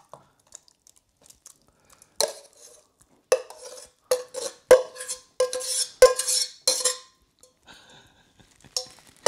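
Metal spoon scraping and knocking against a stainless steel saucepan while thick curry and rice is scooped out, about seven strokes, each with a short ring from the pan.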